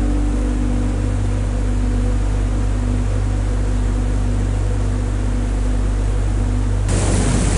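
Steady rushing and rumbling of a waterfall, with faint held music notes trailing off under it. Near the end it cuts abruptly to a louder, hissier rush of falling water.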